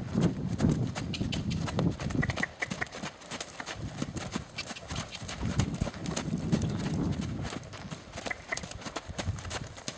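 Hoofbeats of a horse trotting on a sand arena, with strikes repeating in a regular beat. A low rumble comes and goes underneath.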